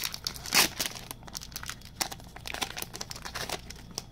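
Crinkling of a hockey card pack's wrapper being handled and torn open, in a string of short rustles, the loudest about half a second in.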